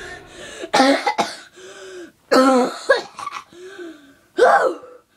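A person coughing in a short fit: four loud coughs about a second apart, with quieter throat-clearing sounds between them.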